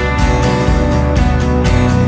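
Background music led by a strummed acoustic guitar with a steady beat.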